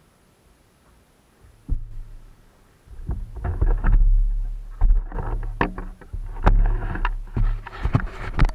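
A mountain bike moving off and riding down a rocky dirt trail. Sharp knocks and rattles from the bike jolting over bumps sit over a low rumble. It starts about a second and a half in, after near quiet.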